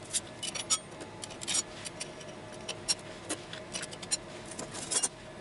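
Steel and textolite clutch discs of an IZh Planeta 5 motorcycle clutch being laid one by one into the clutch basket: a run of irregular metallic clicks and clinks.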